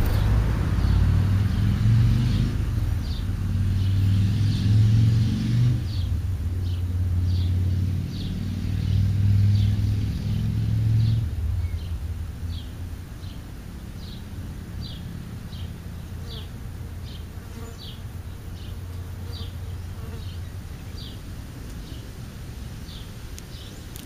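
A flying insect buzzing close by with a wavering pitch, loud for about the first eleven seconds and then gone. Through it and after it, a bird repeats a short high chirp about every two-thirds of a second.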